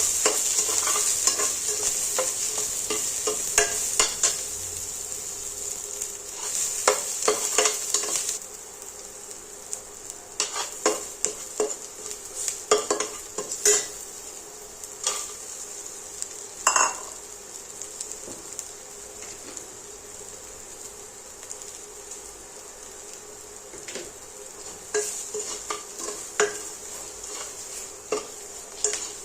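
Food sizzling in a hot frying pan while a utensil stirs and scrapes it, with frequent clinks against the pan. The sizzle is loud for the first eight seconds or so, then drops away sharply, and the stirring clinks carry on.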